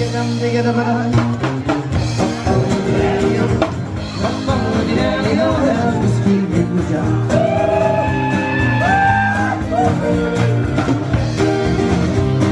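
Live acoustic rock band playing: two strummed acoustic guitars and a drum kit, with male lead vocals.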